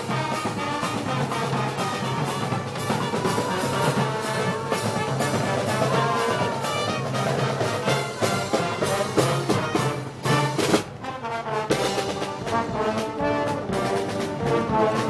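Brass band music, trombones and trumpets over a steady drum beat, of the kind played for Moros y Cristianos festival parades.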